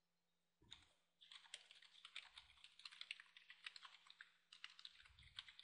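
Faint typing on a computer keyboard: a quick, uneven run of key clicks that starts about a second in and goes on until near the end.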